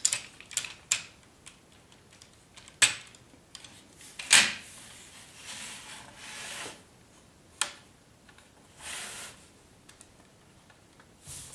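Hard plastic parts of a Transformers toy figure clicking and rubbing as they are snapped together and positioned by hand: several sharp clicks, the loudest about four seconds in, with a couple of brief scraping sounds in between.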